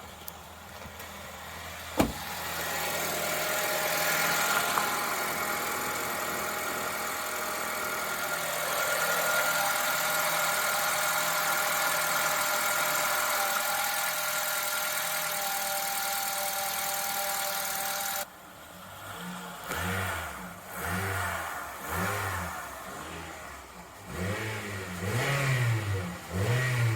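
2013 Honda Civic's R18Z 1.8-litre four-cylinder engine running at a steady idle with a whine and hiss, after a sharp click about two seconds in. After a sudden drop it is blipped several times, the revs rising and falling smoothly.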